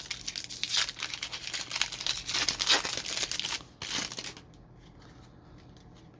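Wrapper of a trading card pack crinkling and tearing as the pack is ripped open, with dense crackling that stops about four seconds in.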